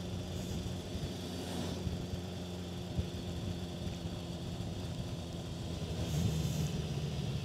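BMW S1000XR motorcycle's inline-four engine running steadily while riding, with a constant engine hum under some wind noise.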